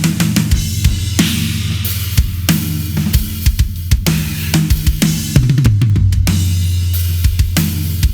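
Drum kit played in a groove: kick drum, cymbals and a Ludwig Raw Brass 14x6.5 snare drum tuned very low, with an Evans Onyx batter head, an Evans 300 snare-side head and Puresound snare wires. The hits come close together throughout.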